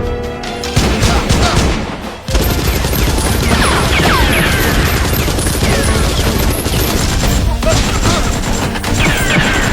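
Dense, continuous rapid gunfire, a sustained fusillade, starting about two seconds in, with music underneath.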